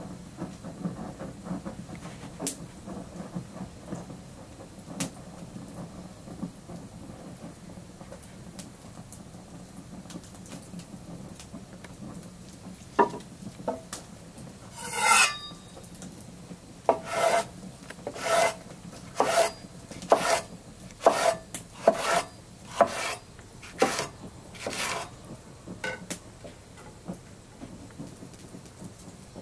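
Knife cutting through a red chili pepper on a wooden board: about nine even chopping strokes, roughly one a second, coming after a few scattered knocks and a short scrape.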